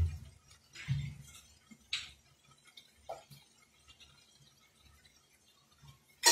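Off-camera kitchen handling noises: a few soft low knocks about a second apart, small clinks, then a sharp, loud clink near the end.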